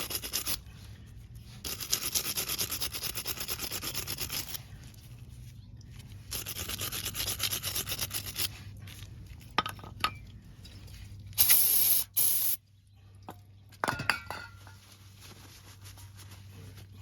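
Wire brush scrubbing rust off a brake caliper bracket in three bouts of quick strokes. A loud hiss of about a second follows, with a few metal clinks.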